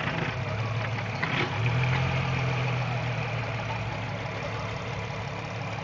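Car engine idling, briefly louder from about a second and a half to three seconds in. It carries a noise that the owner suspects comes from behind the engine block.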